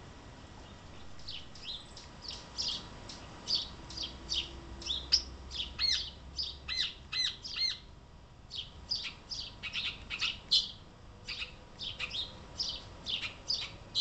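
Epaulet oriole calling: a quick run of short, high chirps, about three a second, with a brief pause about eight seconds in.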